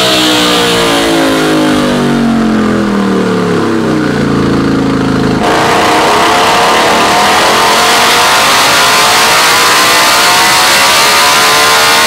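KTM 890 Duke's parallel-twin engine through an Austin Racing exhaust on a motorcycle dyno. The revs fall away with the throttle closed for the first five seconds or so, then the throttle snaps open and the revs climb steadily under load for the rest of the run.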